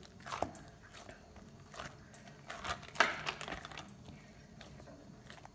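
Greased hands pressing and flattening a soft ball of almond burfi dough on a greased board: faint, scattered soft squishes and pats, the loudest about three seconds in.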